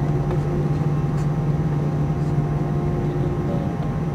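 Airbus A320-200 engines and airframe as heard inside the passenger cabin: a steady low hum with several constant whining tones on top, holding level without spooling up.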